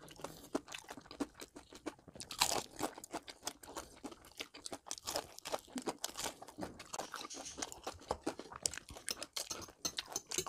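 Crispy coated fried chicken being bitten and chewed by two people: many irregular sharp crunches from the crust, mixed with chewing.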